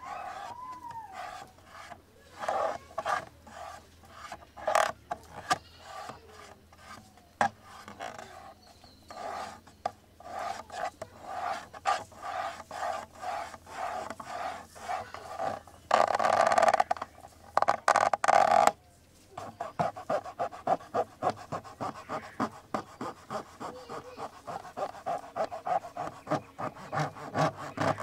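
Fingers tapping and scratching on a camera body: scattered sharp taps, a loud stretch of rough scratching a little past halfway, then quick, even tapping at about three to four taps a second.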